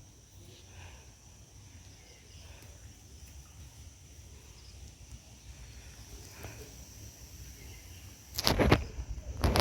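Quiet outdoor background with a steady high-pitched insect drone and a low rumble, then two loud, short bursts of noise near the end.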